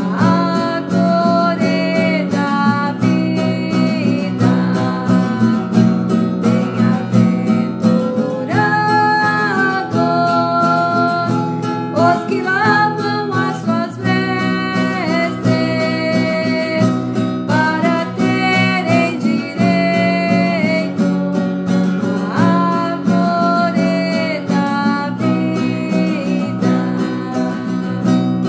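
A woman sings a Portuguese-language hymn, accompanying herself with steady strumming on an acoustic guitar.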